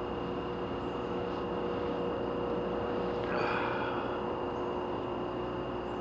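Distant construction machinery at a bridge rebuild a couple of miles off: a steady mechanical drone with a few constant tones in it. A brief louder noise comes a little past halfway.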